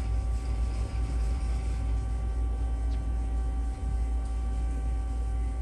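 Powered-up Haas SL-20 CNC lathe humming steadily: a constant low rumble with several steady whining tones above it, without change.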